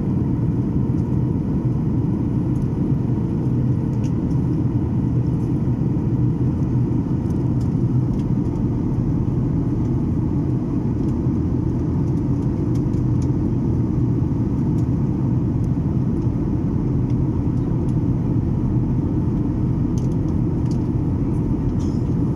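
Steady in-flight cabin noise of a Boeing 737 airliner: engine and airflow rumble, heavy in the low end, with a faint steady hum running through it.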